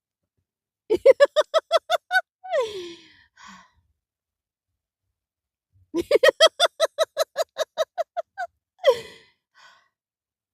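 A person's voice in a run of quick, evenly spaced laugh-like 'ha' pulses, about seven a second, ending in a long, falling, breathy sigh. This happens twice: a short run, then a longer one about five seconds later. These are deliberate vocalized exhalations.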